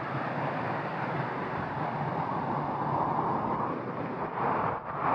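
Water running steadily over rocks in a small cascade, a continuous rushing.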